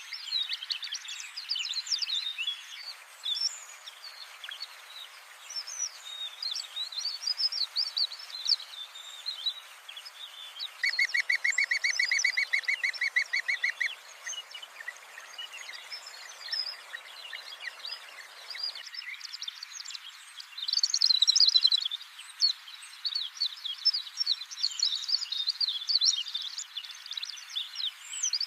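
Several birds calling and chirping over a light background hiss, with a fast, evenly repeated trill lasting about three seconds some eleven seconds in.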